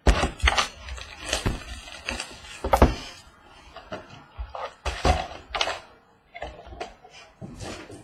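Hands opening a sealed box of trading card packs: rustling and crinkling wrapper and cardboard, with a string of irregular sharp knocks and clicks.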